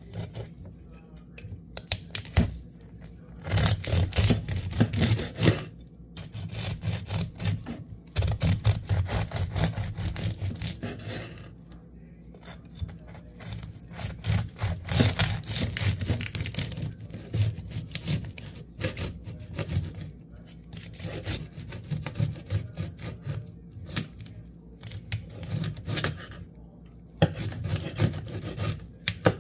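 A knife sawing through the crackling skin and meat of a roast pork knuckle on a cutting board: crisp crunching and crackling in stretches of a few seconds, with short pauses between strokes.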